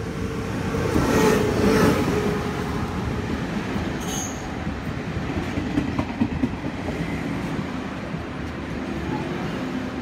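Taiwan Railways E1000 push-pull Tze-Chiang express passing through a station at speed, its rush of noise loudest about a second or two in. Then passenger coaches roll along a platform with a steady rumble and a few wheel clicks.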